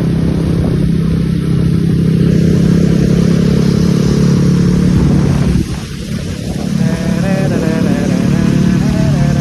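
A road vehicle's engine running loudly and steadily with a low hum. It dips briefly about six seconds in, and from about seven seconds wavering higher tones join it.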